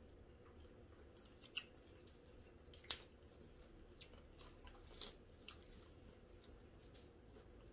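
Near silence at a meal: a few faint, scattered clicks of metal chopsticks against dishes, the sharpest about three seconds in, with soft chewing over a low steady hum.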